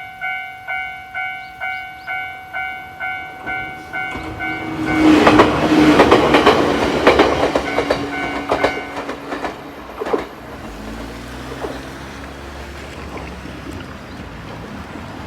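Japanese level-crossing warning bell ringing about twice a second, then a Jōmō Electric Railway train passes over the crossing with its wheels clattering over the rail joints. The bell stops about four and a half seconds in, as the train arrives, and the train's running sound fades away.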